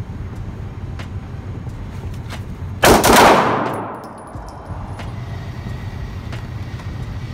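9mm Glock 19 pistol fired about three seconds in: a sharp, very loud report whose echo rings on for about a second in the indoor range. Fainter sharp cracks come now and then over a steady low hum.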